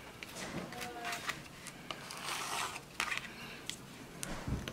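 Nail-art supplies being handled on a work table: a few small clicks and taps, with a brief rubbing rustle about two seconds in.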